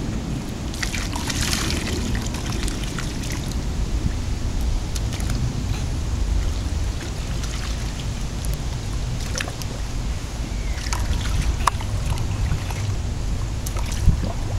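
Water trickling and sloshing as a toddler scoops and pours with plastic cups in a small plastic wading pool, with scattered small splashes. A steady low rumble runs underneath.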